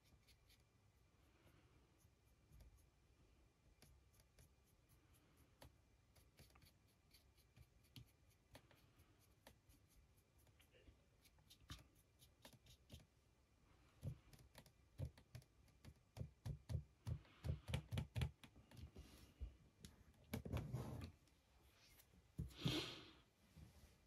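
Quiet handling sounds of painting a 3D-printed figure: faint brush strokes and hand movements, a run of quick light taps in the second half, and two louder scuffs near the end.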